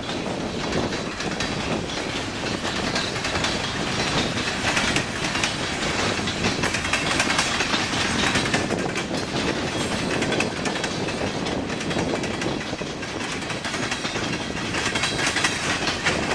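Train rolling past at close range, its wheels clacking over the rail joints amid steady rumble and rattle.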